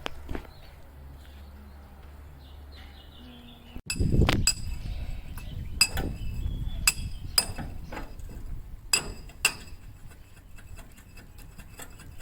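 Sharp metal-on-metal clinks, about six strikes that each ring briefly at a high pitch. They begin after a sudden jump in level about four seconds in, over a low background rumble.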